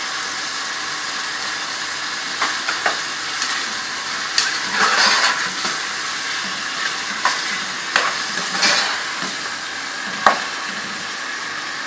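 Onions and ginger-garlic paste frying in hot oil in a pan, sizzling steadily. A spoon stirs them, scraping and clicking against the pan every second or so.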